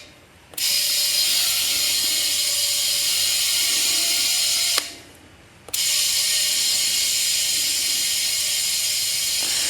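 Small electric air compressor running with a steady rattling buzz, most likely a portable inflator pumping up a freshly plugged tire. It stops briefly twice, right at the start and about five seconds in.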